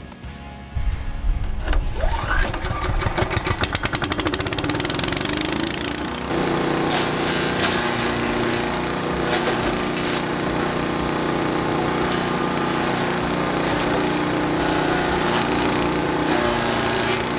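The small gas engine of a Landworks 7 HP wood chipper starts about a second in and speeds up, its beat quickening over a few seconds. It then runs steadily, with background music over it from about six seconds in.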